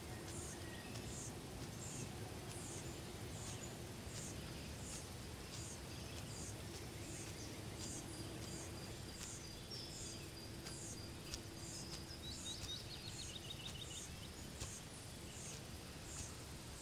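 Quiet outdoor ambience with a steady background hiss and a short high chirp repeating about twice a second, as from an insect. A brief bird trill comes about twelve seconds in.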